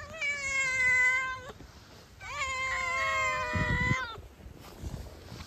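Domestic cat meowing twice: two long, drawn-out meows of about a second and a half to two seconds each, with a short pause between. The first meow is the louder.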